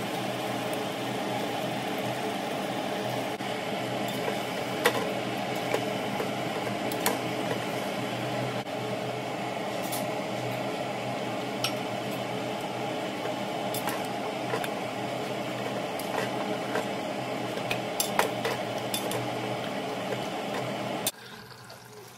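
A steady mechanical kitchen hum with scattered sharp clinks of metal utensils against a kadai of cooking mutton curry. The hum cuts off suddenly about a second before the end.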